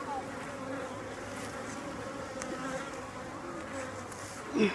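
Honey bees buzzing steadily around an open hive, an even hum. A short, louder sound cuts in near the end.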